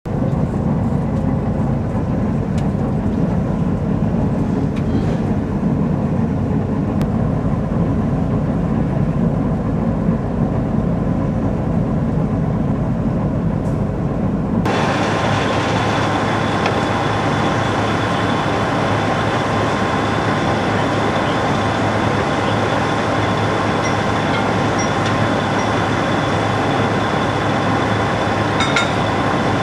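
Small 'Kaluga' diesel shunting locomotive running, heard from inside its cab as a steady low engine rumble. About halfway through the sound changes abruptly to diesel locomotives idling at close range, a steadier, brighter machine noise with a few held tones, and a brief metallic clink near the end.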